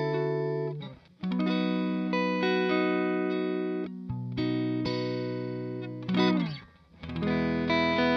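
Electric guitar played through a Hiwatt DR103 clone valve amplifier, chords struck and left to ring. One chord fades out about a second in and a new one sustains for about five seconds. About six seconds in there is a slide down in pitch, then another chord is struck near the end.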